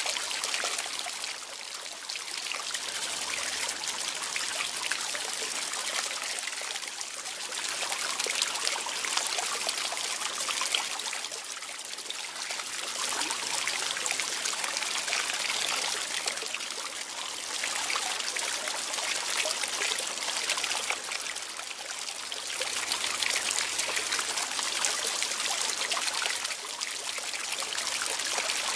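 Water trickling and splashing steadily, rising and falling gently in level every few seconds.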